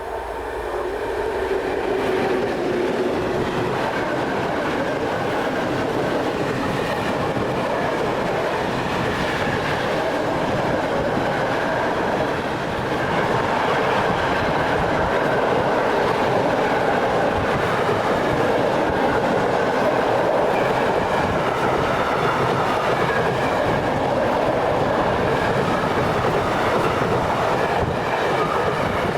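A train passing close by, its wheels clattering over the rail joints. It swells up over the first two seconds and then stays loud and steady.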